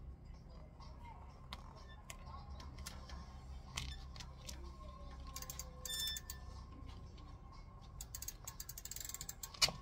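Light clicks and ticks from a mountain bike being handled and mounted, with a brief high ringing chime about six seconds in and a sharper click near the end.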